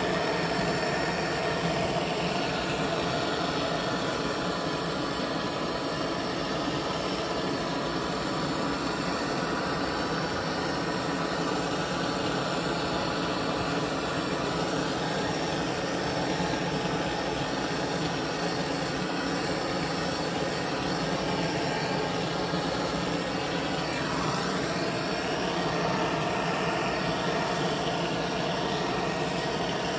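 Handheld gas torch burning steadily, its flame a constant, unbroken noise.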